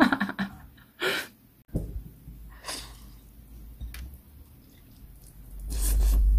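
A woman's breathy laughter and short, sharp breaths close to the microphone, with a low rumble from about two seconds in. Near the end comes a louder, longer breath or puff lasting about a second.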